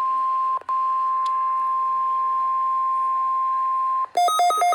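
Weather radio warning alarm tone, the NOAA 1050 Hz alert tone, sounded as a weekly test: a steady single pitch that cuts out for a split second about half a second in. About four seconds in it stops and a rapid electronic beeping, alternating between two pitches, takes over.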